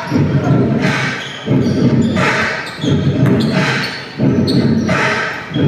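Basketball bouncing on a gym floor during play, with the echo of a large hall.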